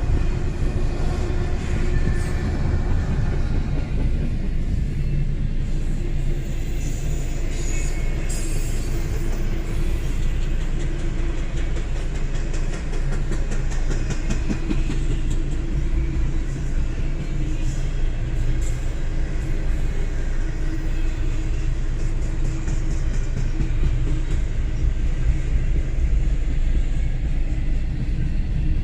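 Freight train rolling past at a crossing, a steady low rumble of wheels and cars.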